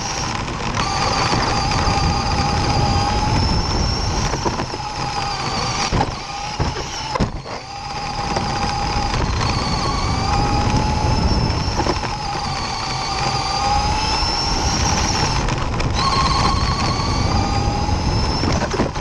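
A radio-controlled dirt-oval car's motor and gears whine from on board, the pitch rising and falling as it speeds up down the straights and slows into the turns, over the rumble of its tyres on dirt. The whine drops away briefly about six seconds in, then picks back up.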